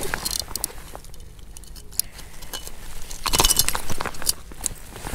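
Fishing tackle being handled: scattered light clinks and rattles, with the loudest flurry about three and a half seconds in.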